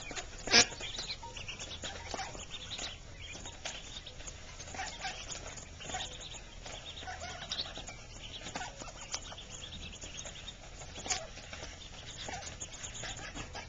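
Mallard ducklings peeping, many short high chirps scattered throughout as they feed on pellets. A single sharp knock about half a second in is the loudest sound.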